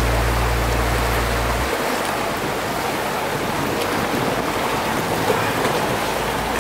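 Motorboat under way on a canal: a steady rush of water and engine noise. Low held music notes stop about a second and a half in.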